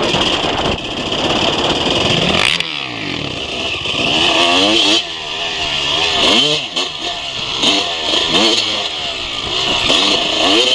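Suzuki RM250 single-cylinder two-stroke dirt bike engine being ridden hard, running steadily at first and then revving up and falling back roughly once a second from about two and a half seconds in, as the throttle is worked along a trail.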